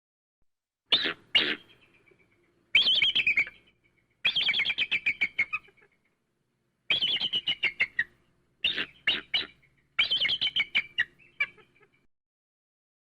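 Eagle calling: about six bouts of rapid, high chittering notes, each series lasting up to about two seconds and trailing off.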